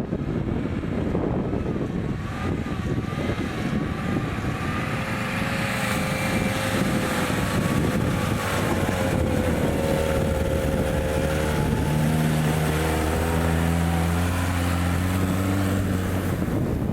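Off-road vehicle engine running under load, its pitch rising and falling as it revs, over a rough rumbling noise; in the second half it settles into a lower, steadier drone.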